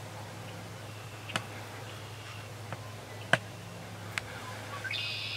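A few sharp ticks or snaps, the loudest about three seconds in, over a steady low hum. Near the end a short high bird call sounds.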